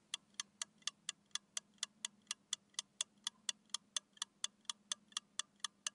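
Clock-like ticking sound effect, even and quick at about four ticks a second over a faint low hum, counting down the time given to practise saying a word.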